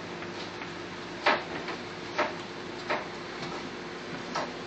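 A few sharp, irregular clicks and taps of knife work at a wooden chopping board, the loudest about a second in, over a steady hum.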